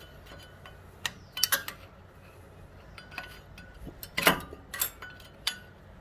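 Screwdriver prying a disc brake pad out of a car's brake caliper: a series of sharp metal-on-metal clicks and clinks, the loudest about four seconds in with a short scrape.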